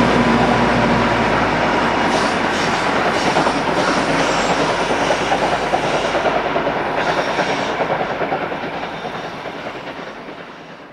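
Passing train of three-axle passenger coaches rolling away, the wheels clattering over the rail joints and fading steadily into the distance. In the first second a steady hum from the diesel locomotive at the rear dies away.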